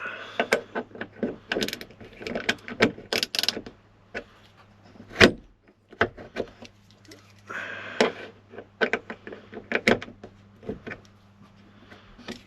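Irregular clicks, taps and knocks of hands working billet aluminum Freedom top locks against a Jeep hardtop, with two brief rustles, one at the start and one about eight seconds in.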